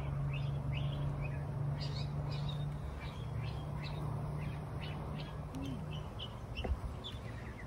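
Small birds chirping over and over in short, quick, falling notes, over a steady low hum that stops about six seconds in. A single knock sounds near the end.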